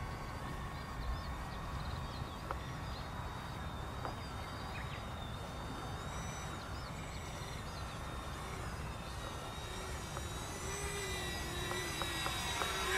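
The twin electric ducted fans of a small RC model jet give a thin, high, wavering whine. The whine is faint at first and grows louder over the last few seconds as the plane comes closer overhead.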